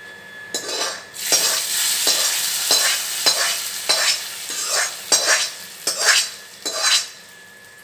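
Hot oil tempering of panch phoron, dried red chilli, garlic and curry leaves sizzling as it hits a curd-and-pumpkin curry, with a utensil stirring and scraping in repeated strokes about once a second. The sizzle dies away near the end.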